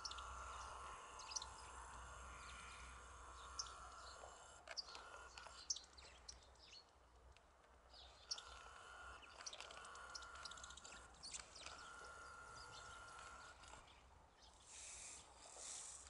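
Faint, scattered short chirping calls of small songbirds such as finches and buntings, over a low steady rumble.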